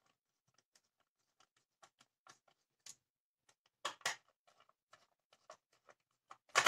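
Small hand screwdriver turning screws into the plastic case of a power strip: faint scattered clicks and scrapes, with louder clatters about four seconds in and near the end.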